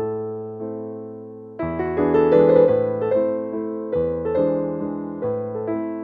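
Background music of soft electric piano playing slow chords. The notes are struck and fade away. One chord is held quietly for the first second and a half, and louder chords come in after that.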